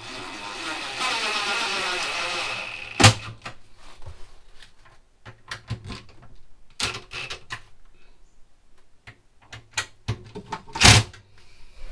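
Cordless drill running for about three seconds as it bores a pilot hole through the shower recess's roughly 4 mm polycarbonate lining, ending in a sharp knock. Scattered clicks and knocks follow, with another loud, brief burst near the end.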